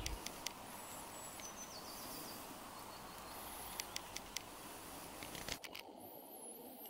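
Faint outdoor ambience: a steady hiss with small birds calling high and thin, once about a second in and again near the end, and a few light clicks midway.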